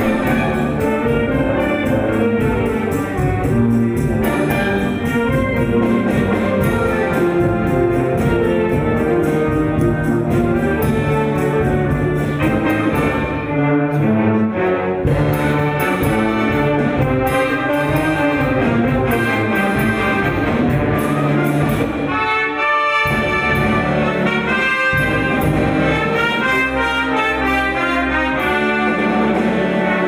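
Background orchestral music with brass instruments prominent, playing continuously.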